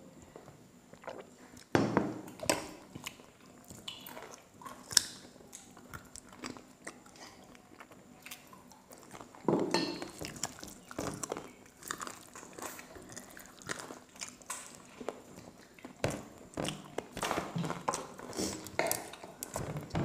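Close-up eating sounds: chewing with lip smacks, and fingers mixing rice and curry on a plate, giving irregular small clicks and wet taps with occasional louder clusters.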